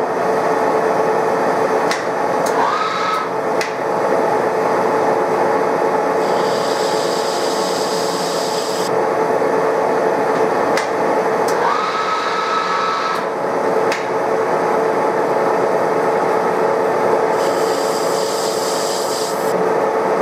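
TOS SN63B lathe running with a steady whine while an indexable insert chamfers the outer edge of a metal wheel hub. A hissing cutting noise comes in twice, from about six to nine seconds in and again near the end, with a few sharp ticks along the way.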